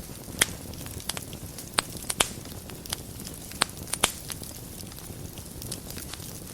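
Wood fire burning in a fireplace: a low steady rumble with scattered sharp crackles and pops, more of them in the first half.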